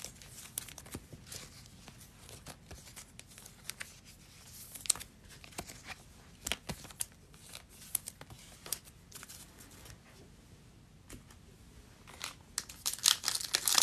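Faint scattered clicks and light rustling, then near the end louder crinkling as a foil Panini Prizm trading-card pack is picked up from the stack.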